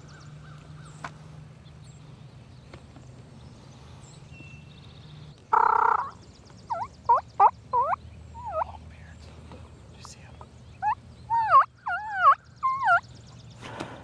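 Turkey calling: one loud burst about five and a half seconds in, then two runs of short, wavering yelping notes.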